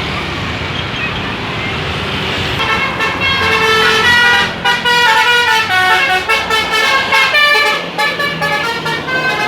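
Bus 'telolet' (basuri) multi-tone horn playing a fast tune of short stepped notes over the running of bus engines and traffic, the tune starting about three seconds in and getting louder.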